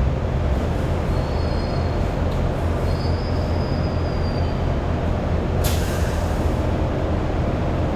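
Kawasaki-built Hong Kong Light Rail car running along the track, heard from inside the trailer car: a steady low rumble, with faint high squeals near the start and again around the middle, and one short sharp noise about two thirds of the way through.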